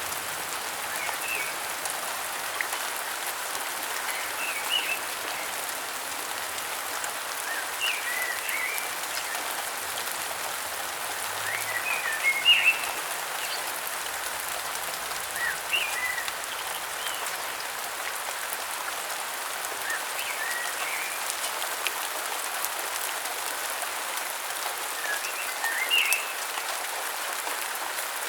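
Steady heavy rain, with a bird giving short chirping calls every few seconds.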